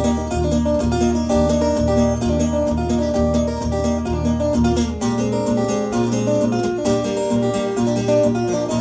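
Solo acoustic guitar played fingerstyle: a picked melody over steady bass notes about two a second, with the bass line changing about five seconds in.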